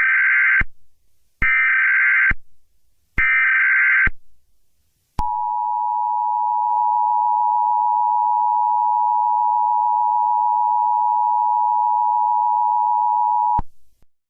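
Emergency Alert System alert tones: three bursts of SAME digital header data, about a second each with short gaps, then the two-tone EAS attention signal (853 and 960 Hz together) held steady for about eight seconds before cutting off suddenly.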